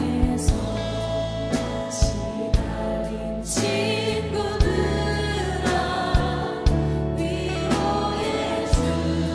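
Worship band playing a gospel song: drum kit with a Pearl Reference Pure snare and Istanbul Agop cymbals keeping a steady beat over bass, keyboards and guitar, with singing voices. A crash cymbal is struck about three and a half seconds in.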